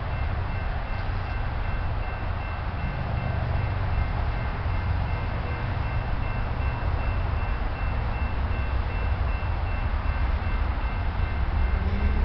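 Low, steady rumble of the Amtrak Southwest Chief's GE P42DC diesel locomotive approaching, slowly growing louder.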